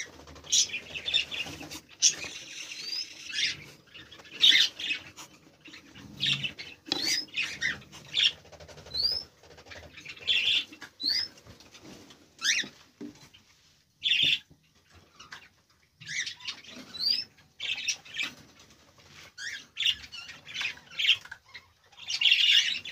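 Cockatiels chirping and calling, a scatter of short calls, several of them quick rising whistles, with brief gaps between bursts. Short rustles and knocks occur now and then among the calls.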